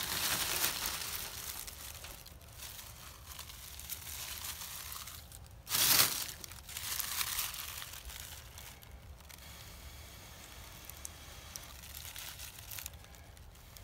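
Dead leaves crinkling and crunching as they are gathered and piled by hand, loudest in a sharp crunch about six seconds in, then fading to fainter rustling.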